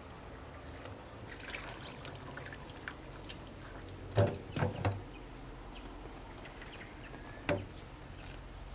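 A scalded turkey is being hand-plucked over a metal bowl of hot water: wet feathers are pulled off and shaken, and water trickles and drips. There are three loud splashes in quick succession about four seconds in, and another one near the end.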